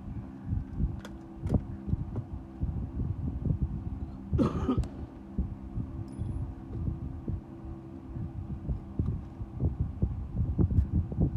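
Handling noise of a Diana Chaser CO2 air gun being worked on in a foam-lined case: soft knocks and rubbing, a couple of sharp clicks about a second in, and a half-second scrape about four and a half seconds in, over a steady low hum.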